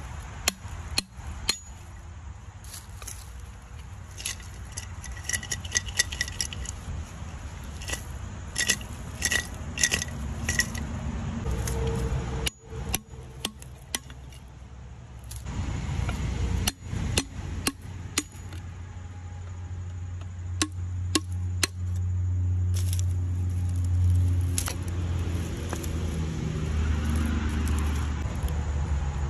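A metal hand scraper tapping and scraping against a buried ceramic pot among dry twigs and leaves: sharp knocks and ringing clinks come in quick clusters, with rustling and snapping of brush. A low steady rumble grows louder through the second half.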